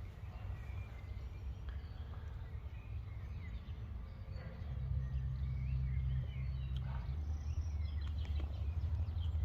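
Outdoor ambience: a steady low rumble with faint, short, high chirps over it. The rumble grows louder about five seconds in.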